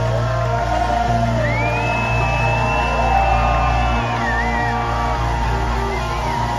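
A New Orleans funk-brass band playing live with heavy bass, heard from within the crowd. A long high note rises, holds for about three seconds and falls away in the middle.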